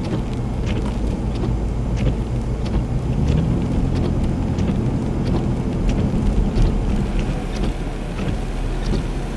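Severe storm winds and rain against a vehicle: a steady low rumble with scattered sharp raindrop ticks striking the body.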